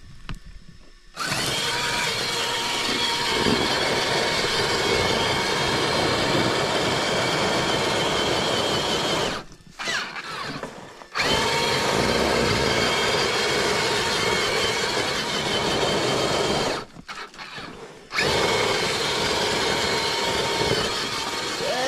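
Electric motor and geared drivetrain of a 1/6-scale Axial SCX6 RC crawler running under load with a steady whine, in three long stretches broken by two short pauses.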